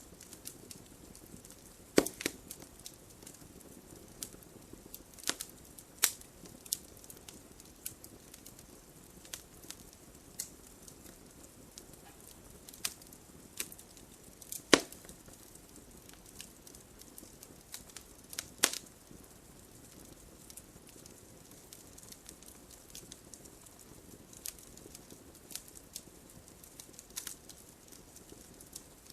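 Wood fire burning in a fireplace: logs crackling with irregular sharp pops over a soft steady hiss, a few pops much louder than the rest.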